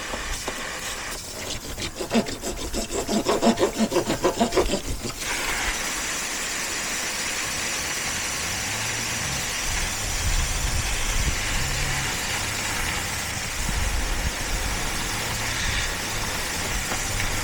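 Saw cutting through a 1-inch plastic water pipe that is still under about 60 psi of well pressure, in quick strokes of about four a second; about five seconds in the cut opens and water sprays out of the pipe in a steady loud hiss.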